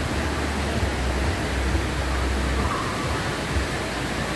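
Waterfall running heavy after a lot of rain: a steady, even rushing of water.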